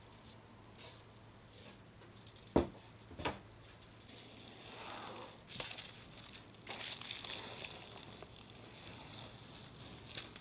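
Masking tape and clear plastic film being peeled off a carbon-fibre glider wing, crinkling and tearing through most of the second half. Two sharp knocks come a couple of seconds in.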